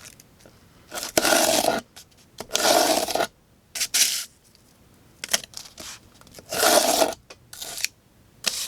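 Real Steel Phasma folding knife's D2-steel spear-point blade cutting into cardboard: about five short scraping strokes, each under a second long, with pauses between them.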